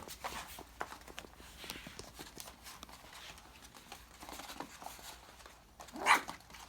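Puppies' paws pattering and scrabbling across the floor as a litter of five-week-old Labradoodle puppies plays, with light scattered clicks throughout. One short, much louder noise comes about six seconds in.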